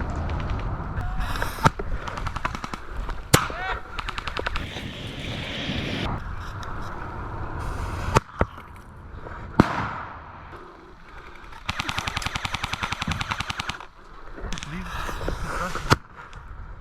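Airsoft electric guns firing rapid full-auto bursts, the longest about two seconds near the end, mixed with a few single sharp cracks.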